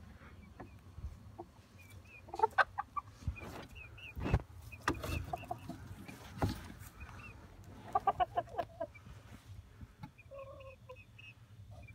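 Young chickens clucking in short rapid runs, about two seconds in and again near eight seconds, over soft high peeping. A few sharp knocks and bumps come in between.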